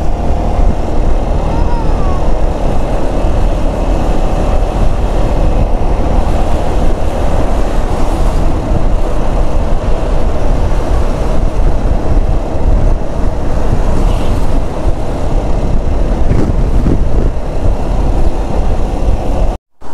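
Wind rushing over the microphone with the steady drone of a Yamaha XMAX scooter's single-cylinder engine and tyres at cruising speed.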